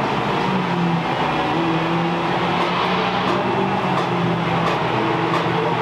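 Race car engines running on the track, a steady drone whose pitch slowly rises and falls.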